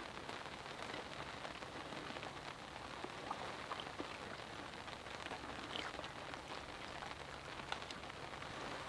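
Light rain pattering steadily, with a few faint clicks of a fork against a plate.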